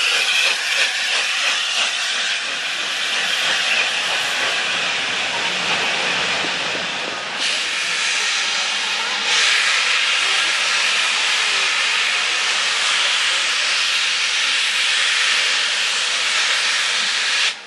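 Steam locomotive standing with steam escaping in a loud, steady hiss, which grows louder twice, about seven and nine seconds in.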